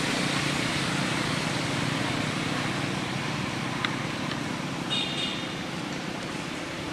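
Steady outdoor background noise, with two faint clicks about four seconds in and a brief high-pitched chirp about five seconds in.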